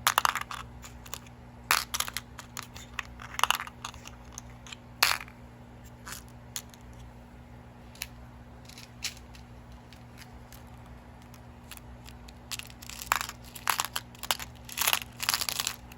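Irregular crinkling, rustling and sharp clicks from bead strands and their packaging being handled by hand, in bursts with quieter stretches between and a busy cluster near the end.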